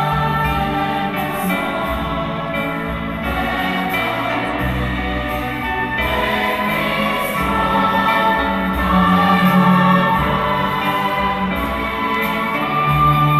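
A large choir singing together with an orchestra, performed live.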